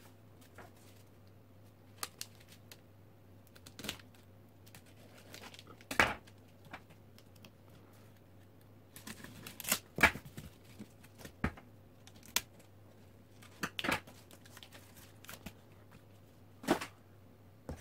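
A serrated knife cutting open the taped edge of a cardboard mailer, heard as scattered short scrapes, rips and crinkles of cardboard, tape and paper.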